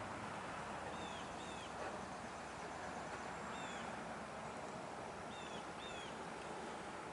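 Short bird chirps, several in pairs, over a quiet steady background hiss.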